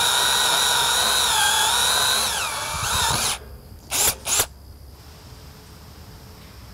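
Cordless drill boring into steel: a steady motor whine that sags in pitch as the bit bites, stopping about three and a half seconds in. Two short bursts of the drill follow.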